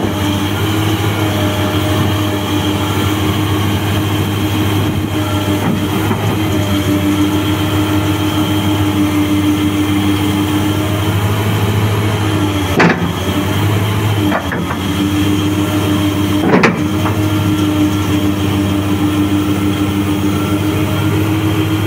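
Large hydraulic face shovel excavator working: its diesel engine drones steadily under load with a steady hydraulic whine. Sharp metallic knocks come about 13 seconds in and again about three and a half seconds later, with a lighter knock between them.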